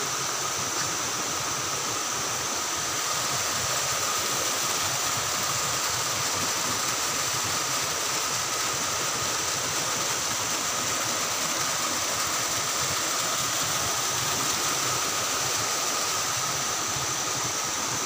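Steady rush of water from a small cascade pouring over rocks into a pool, an even noise that keeps the same level throughout.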